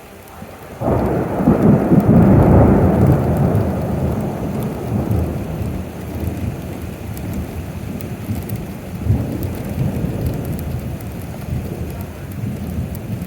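A thunderclap breaks about a second in, loudest for the next two seconds, then rolls on as a long low rumble that fades, swelling again about nine seconds in. Steady rain falls underneath.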